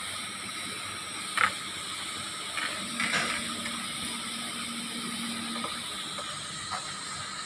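TIG (argon) welding arc on thin stainless steel sanitary pipe: a steady hiss with a few sharp ticks, the loudest about a second and a half in.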